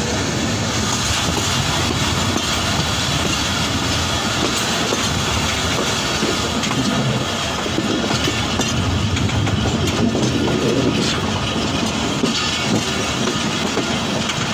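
Passenger train carriages running at speed: a steady rumble and clatter of wheels on rail, heard from outside the carriage window.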